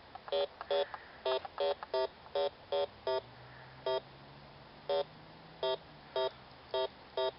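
Metal detector giving about fifteen short, same-pitched beeps at uneven intervals as it is swept over a hole, signalling buried metal in the dirt.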